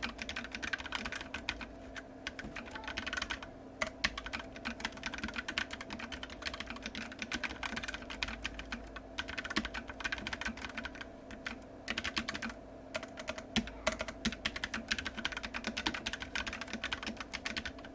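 Typing on a Keychron K3 low-profile keyboard with Gateron Brown tactile switches: quick, irregular key clicks with short pauses about three and a half and twelve and a half seconds in. A steady computer-fan hum runs underneath.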